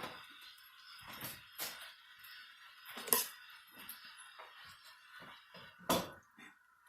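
Kitchen clatter: dishes and utensils clinking and knocking several times, loudest about three seconds in and just before six seconds.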